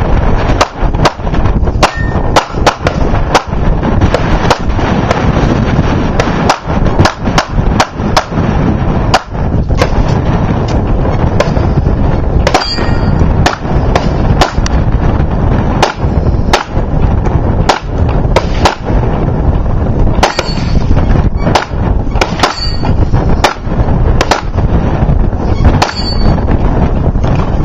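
Rapid gunfire on a shooting range: dozens of loud shots at an uneven pace, several a second at times, with a few short high-pitched rings between them.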